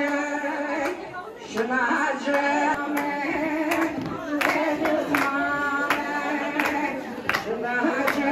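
A woman singing a Kurdish kılam (folk song) into a microphone in long held notes, with the audience clapping along in a steady beat of a little more than one clap a second.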